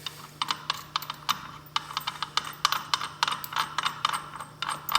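Ratchet wrench clicking in quick, irregular runs as it backs out the bolt holding a snowmobile's driven clutch pulley, with a faint steady hum underneath.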